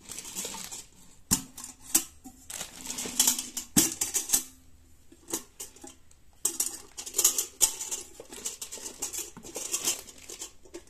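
Stainless-steel grinder lid and drum being handled: scattered clinks, taps and scrapes of metal on metal with some rustling, and a short quiet pause about halfway through.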